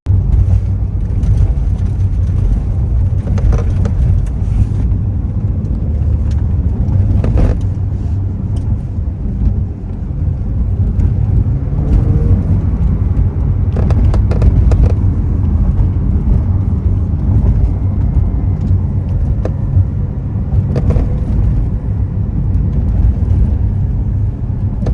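Inside a 2023 Porsche 911 Carrera Cabriolet on the move: a steady, loud low driving rumble, with occasional short sharp clicks and creaks, the roof noise the owner is trying to capture.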